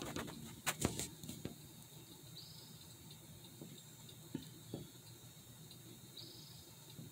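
Quiet pond-side background with several sharp clicks and knocks of the camera being handled in the first second and a half, then two short high chirps, about four seconds apart.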